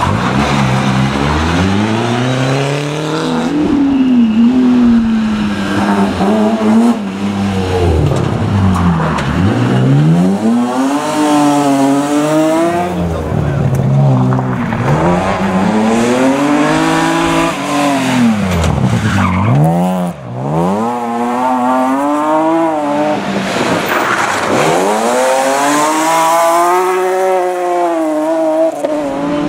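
Rally cars driven hard, engines revving loudly, their pitch climbing and falling again and again as they accelerate and back off.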